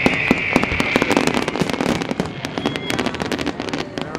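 Fireworks display going off: a rapid run of sharp cracks and bangs, with a high hiss that fades out about halfway through.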